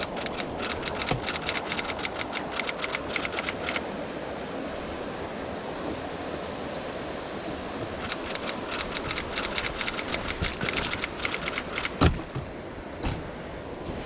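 Camera shutter firing in two rapid bursts of clicks, about ten a second, each lasting a few seconds, over the steady rush of stream water. A single thump comes near the end.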